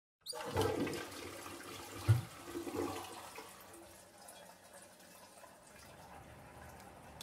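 Toilet flushing: a sudden rush of water that starts abruptly and fades over a few seconds into the quieter steady hiss of the cistern refilling, with one sharp thump about two seconds in.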